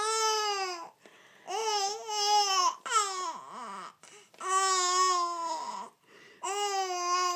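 Young baby cooing: a string of about five long, drawn-out vowel sounds at a fairly steady high pitch, with short pauses between them.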